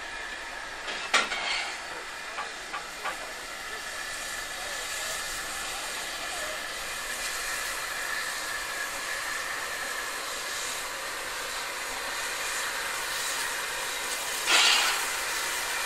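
Steam locomotives of a double-headed narrow-gauge train, W-class W934 and NM25, hissing steadily with steam escaping around the cylinders and wheels. There is a sharp metallic clank about a second in, and a louder burst of steam lasting about a second near the end.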